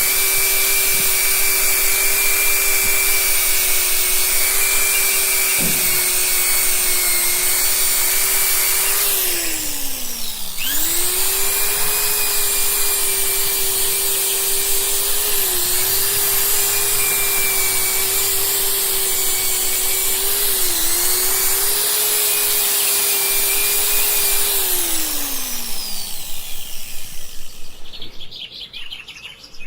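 High-speed electric motor of a power tool running steadily, winding down about ten seconds in, starting up again and running with two brief dips in speed, then winding down once more near the end.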